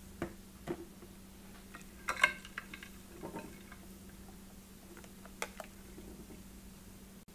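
Silicone spatula folding whipped cream into a custard in a glass bowl: scattered soft clicks and taps against the glass, the loudest cluster about two seconds in, over a faint steady low hum.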